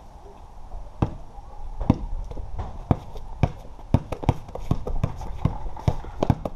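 Basketball being dribbled on a concrete patio: sharp bounces starting about a second in and coming faster, about two to three a second, with sneaker steps among them.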